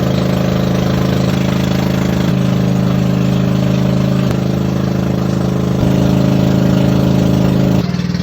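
Motorboat engine running steadily with a low hum. Its pitch shifts slightly a few times, and it grows a little louder about six seconds in before easing back near the end.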